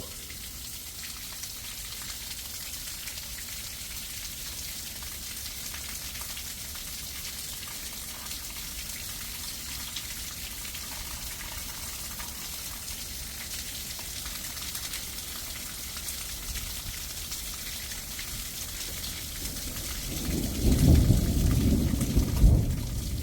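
Freezing rain hissing steadily on the ground and surfaces. About twenty seconds in, a loud rumble of thunder rolls in and keeps going.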